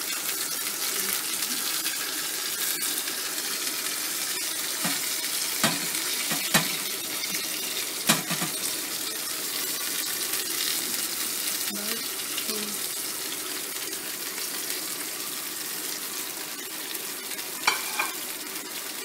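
Yogurt-marinated chicken pieces sizzling steadily in oil in a frying pan, with a few sharp knocks, about a third of the way in and again near the end, as leftover marinade is tipped from a plate onto them.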